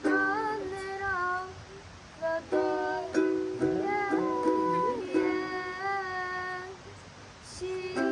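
Background music: a ukulele song with steady plucked chords and a voice gliding in pitch over them.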